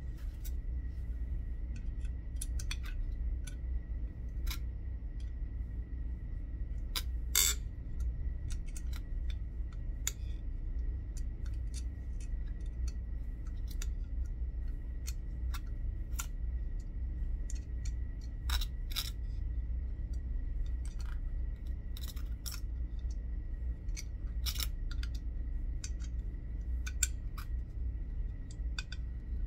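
Irregular small clicks and taps as the parts of a Trek Madone Gen 6 seatpost head are handled and pressed together by hand, one sharper click about seven seconds in, over a steady low hum.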